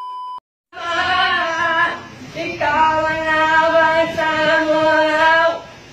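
A steady 1 kHz test-pattern beep cuts off about half a second in. Then a voice sings long, held notes, with a short break about two seconds in.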